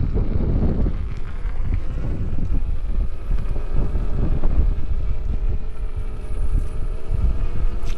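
Wind buffeting the microphone in a continuous gusting rumble, with a faint, steady motor hum underneath.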